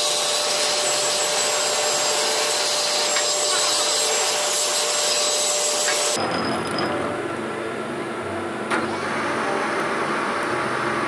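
Steady, hissy machine noise with a steady whine cuts off abruptly about six seconds in. A vertical milling machine takes over, its cutter milling a steel bar, with a sharp click near the end.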